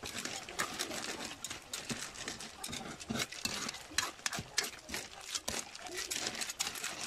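Metal ladle stirring snails in their shells through a pan of coconut-milk sauce: a quick, irregular clatter of shells clacking against each other and the metal pan.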